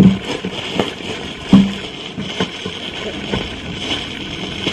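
White plastic packaging bag crinkling and rustling as it is handled and opened, with irregular crackles and one louder crackle about one and a half seconds in.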